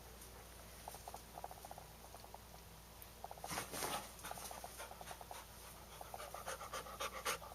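A dog panting in quick, rhythmic runs while play-wrestling with a cat. A few sharp scuffling knocks come about three and a half seconds in and again just before the end.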